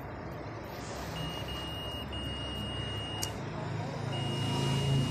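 Fluke 101 multimeter's continuity beeper giving a steady high beep as the probes sit across the IPM module's terminals: a dead short in the compressor-driver IPM of a Samsung inverter refrigerator. The beep sounds from about a second in, breaks off twice briefly, stops with a click about three seconds in, then starts again near the end, over a low rumble that grows louder.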